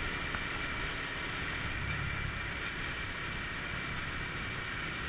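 Steady wind rush and motor noise from a Honda scooter riding at speed, with wind buffeting the microphone.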